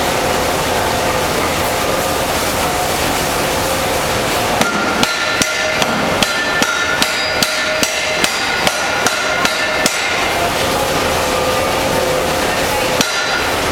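A 5 cwt Massey power hammer beating white-hot puddled wrought iron, a dense, steady clatter throughout. From about a third of the way in there is a run of some fourteen sharper, ringing blows, two or three a second, then one more blow near the end.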